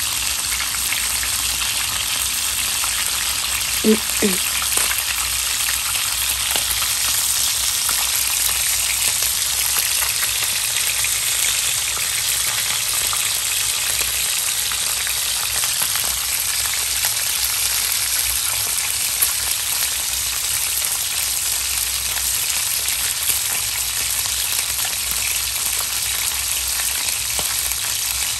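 Hot oil sizzling and crackling steadily around whole galunggong (round scad) shallow-frying in a pan. A brief louder sound stands out about four seconds in.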